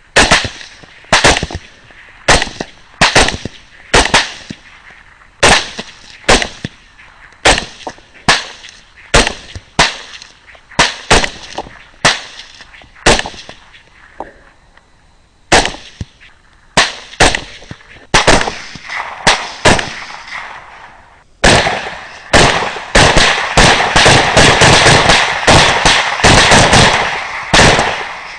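Rifle shots at hogs: sharp single shots about a second apart for most of the stretch, then near the end a fast, dense string of shots overlapping one another.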